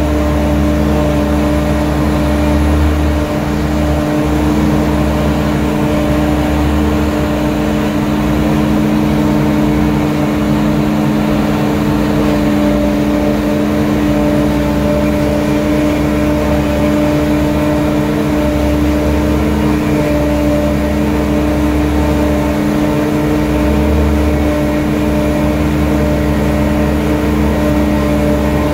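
Self-propelled forage harvester running steadily under load while chopping, a constant machine hum with a deeper engine rumble that swells and dips.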